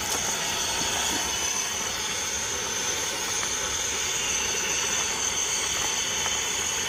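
Steady hiss of a portable gas burner running under a pot of boiling ramyeon.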